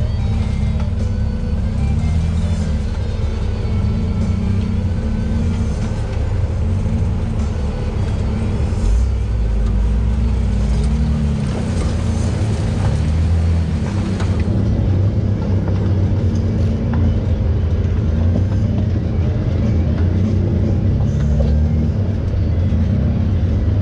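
Off-road vehicle engine running as it crawls up a rocky climb, with music playing over it.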